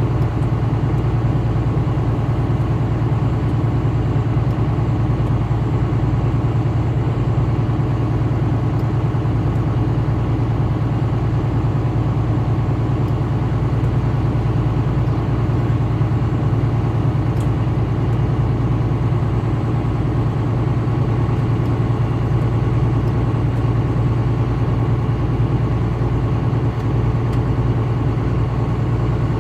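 Steady low drone of a vehicle's engine and road noise while driving on a highway, even and unchanging.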